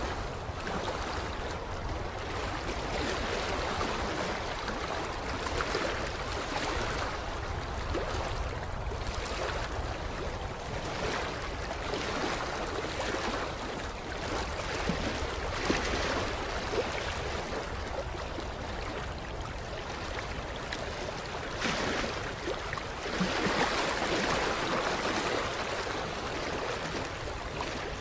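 Creek water lapping at the shoreline: a continuous wash of small splashes that swells and eases every few seconds.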